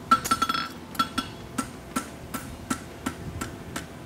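Hand hammer striking a red-hot steel horseshoe on the anvil: a quick flurry of blows, then a steady run of about three a second, each with a short metallic ring.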